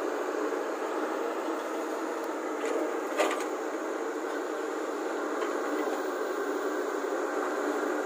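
Volvo crawler excavator's diesel engine running steadily under load as it works, with a brief clatter and thump about three seconds in as a bucketful of earth and stones lands in the steel body of a tipper truck.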